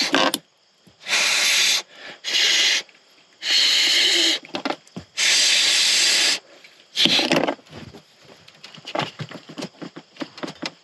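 Electrical tape being pulled off the roll in several loud, tearing pulls while wrapping spliced wires, followed by smaller rustling and handling clicks near the end.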